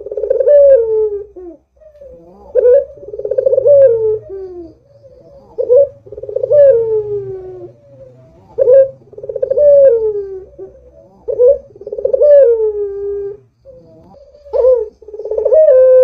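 Barbary dove (puter) cooing repeatedly, about six phrases roughly three seconds apart, each a short rising note followed by a longer falling coo.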